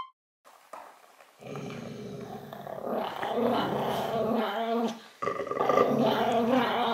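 A dog growling in two long stretches, the second starting about five seconds in: a warning growl in a standoff with another dog over a treat-dispensing toy.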